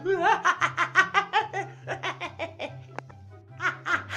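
A man laughing loudly in rapid, high-pitched ha-ha bursts over background music with a steady bass line. The laughter fades to a lull about three seconds in and breaks out again near the end.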